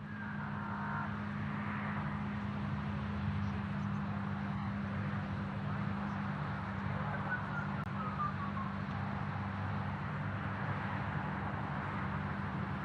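Outdoor ambient sound at a rocket launch pad: a steady low hum under a constant hiss, with a faint falling whistle about seven seconds in.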